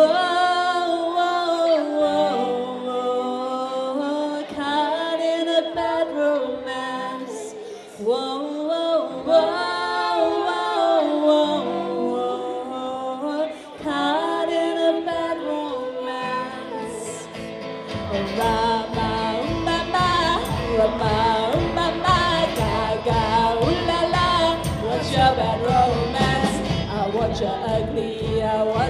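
Swing-boogie band playing live with a singer: a slow sung melody over light accompaniment, then about eighteen seconds in the full band comes in with a steady beat under the vocal.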